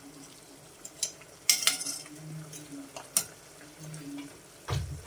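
Metal kitchen tongs stirring chicken pieces in a metal cooking pot, clinking and scraping against the pot. A few sharp clicks come through, the loudest about a second and a half in, with a heavier knock near the end.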